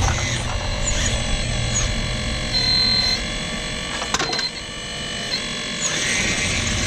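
Radio-controlled model excavator's electric drive motors whining steadily as the machine works, with a brief higher-pitched whine about two and a half seconds in and a sharp crack about four seconds in.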